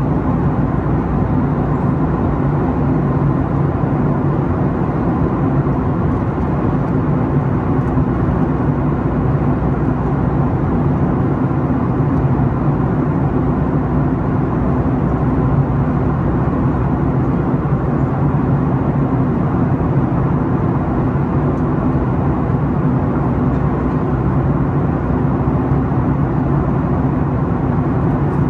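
Boeing 737 MAX 8 cabin noise at cruise beside its CFM LEAP-1B engine: a constant low drone of engine and rushing air with a steady hum underneath.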